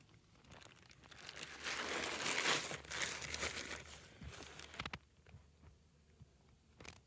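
Rustling, crinkling noise that swells over a couple of seconds and dies away about five seconds in, followed by a few faint clicks.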